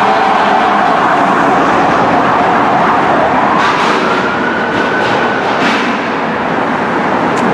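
Loud, steady street traffic noise, with a fire engine's siren faintly rising in pitch from about three seconds in, holding briefly, then fading.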